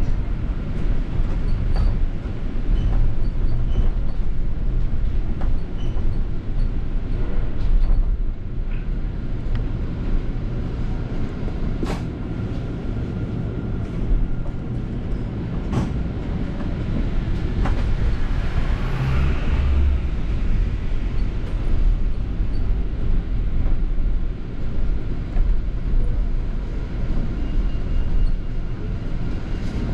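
Inside a moving London bus: steady low engine and road rumble, with occasional clicks and rattles and one heavier knock about two-thirds of the way through.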